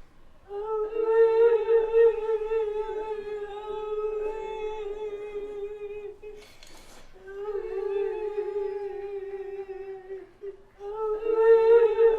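A woman's voice holding long, high, slightly wavering notes in a wailing call. The first note lasts about six seconds and is followed by a sharp breath, then a second held note and a third starting near the end.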